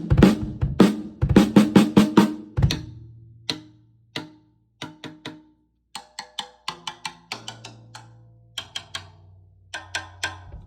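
Drum kit played in short fills and single strikes: snare and toms with ringing pitched tails, dense runs of hits for the first few seconds, then sparser hits separated by pauses.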